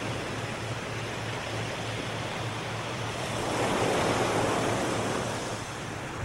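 Ocean surf washing on the shore, a wave building louder about four seconds in and easing off again.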